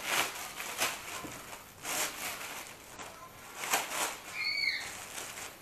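Black plastic rubbish bags rustling and crinkling in several bursts as they are pulled open and spread out by hand. A brief high chirp comes about four and a half seconds in.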